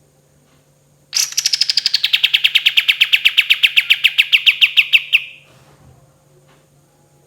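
Kapas tembak songbird giving one long rapid trill of about ten sharp notes a second, lasting about four seconds; it starts a little higher and settles to a steady pitch, then stops about five seconds in.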